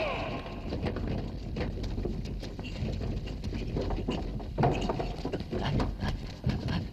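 Irregular light clicks and patter, with a couple of heavier thumps about two-thirds of the way through and near the end.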